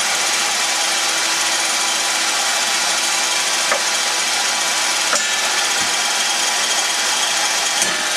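Benchtop table saw running steadily, with a few light knocks in the middle and near the end.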